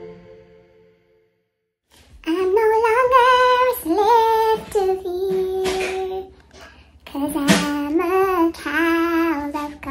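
A high woman's voice singing a short melody without accompaniment, in long held notes with short breaks between phrases, starting about two seconds in after a fading tone and a moment of silence.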